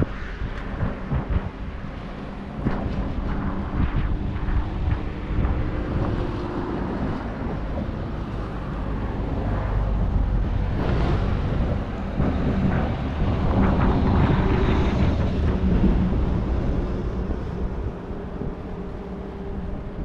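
Wind buffeting the microphone over a steady low rumble of engine and traffic noise, swelling for several seconds in the middle as a vehicle passes.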